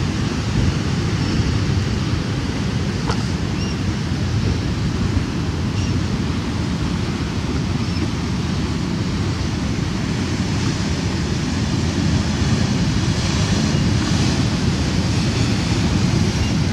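Sea surf washing against a rocky shore, with wind rumbling on the microphone. The surf grows a little louder and hissier about two-thirds of the way through.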